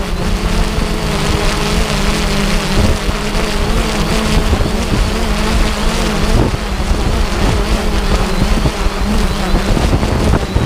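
An engine running steadily at a near-constant speed, loud throughout, over a dense rushing noise.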